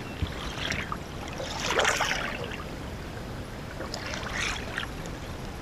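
Water swishing and splashing as a bucktail and rod tip are drawn through a figure eight beside the boat, with the loudest swish about two seconds in and another a little after four seconds, over a steady low rumble.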